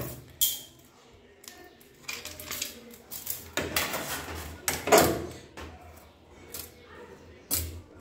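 Handling noise: a steel tape measure clicking, rattling and knocking against a top-loading washing machine's stainless steel drum as it is stretched across the tub. The sharp knocks come at uneven intervals, the loudest about four to five seconds in.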